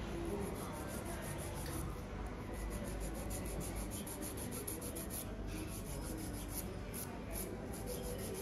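Nail file filing fingernails in quick, even back-and-forth strokes, the strokes growing more distinct about two seconds in.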